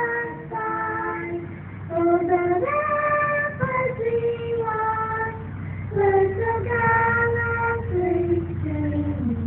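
A high solo voice singing the national anthem, moving in steps between held notes of about half a second to a second each.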